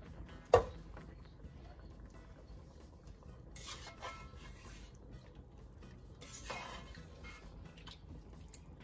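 A sharp knock about half a second in, then a spatula scraping and shifting mackerel pieces in a pot of tomato and wine liquid, in two short bursts.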